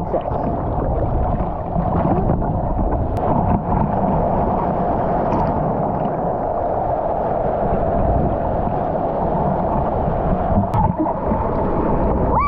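Ocean surf water churning and gurgling close to the microphone, a steady rushing noise.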